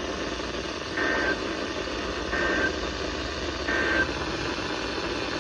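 Three short bursts of EAS/SAME digital data tones from a NOAA weather radio, evenly spaced about a second and a third apart: the end-of-message code that closes the alert. They come through a steady hiss of static from the weak, distant signal.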